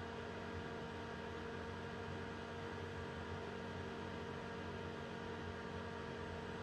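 Steady electrical hum made of several constant tones over a faint hiss, with no changes or separate events.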